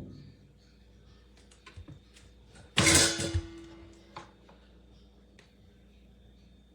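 Knocks and clicks of objects being handled, with a thump at the start and one loud, rough burst about three seconds in that leaves a short steady tone behind it for about a second.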